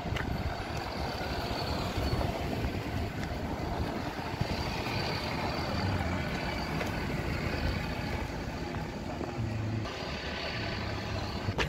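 Wind rumbling on a handheld camera's microphone while walking along a street, with traffic noise in the background.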